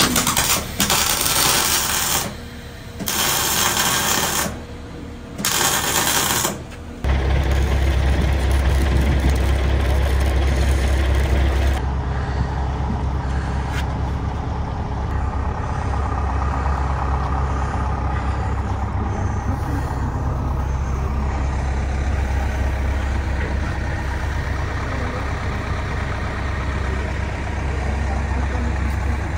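Arc welding a steel bunker leg: loud crackling hiss in several short runs of one to two seconds, stopping and restarting. About seven seconds in, a heavy diesel engine's steady low rumble takes over and runs on evenly.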